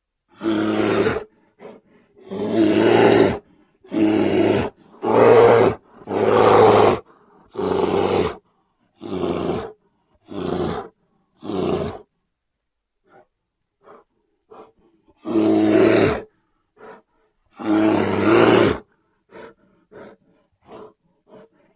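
Brown bear vocalisations from a sound-effects recording: a run of about a dozen deep, rough calls, each about a second long and separated by silence, with a few shorter, fainter calls near the end.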